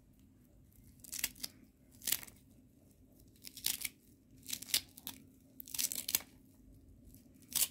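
Fresh coriander stems and leaves being cut with a serrated kitchen knife. Each stroke gives a short, crisp crunch, about once a second and some in quick pairs. The crunch is the sign that the coriander is fresh.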